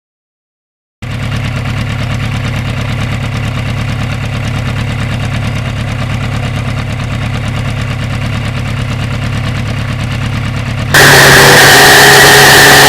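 A motorcycle engine idling steadily with an even pulse. About eleven seconds in the sound cuts abruptly to a much louder engine with heavy wind-like hiss, its pitch slowly rising as it pulls.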